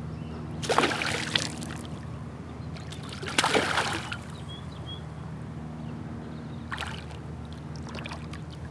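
A hooked smallmouth bass thrashing at the surface beside a kayak, splashing in separate bursts as it fights the line. The biggest splashes come about a second in and about three and a half seconds in, with smaller ones near the end.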